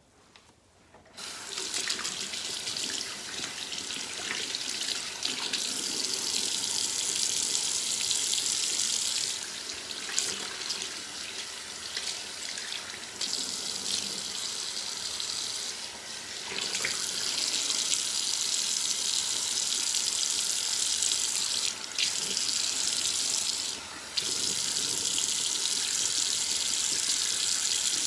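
Bathroom sink faucet running while a face is rinsed of scrub. The water comes on about a second in, runs lighter for a stretch in the middle, and breaks off briefly twice near the end.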